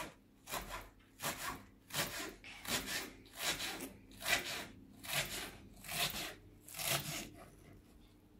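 Kitchen knife chopping a red onion on a plastic cutting board: a steady run of rasping slicing strokes, roughly one every two-thirds of a second, stopping near the end.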